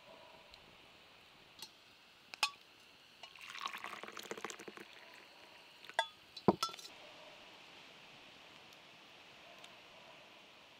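Glass teapot and its glass infuser clinking as the infuser is lifted out, with tea trickling and dripping from it for about a second and a half, then two sharp glass clinks as the lid is set back on.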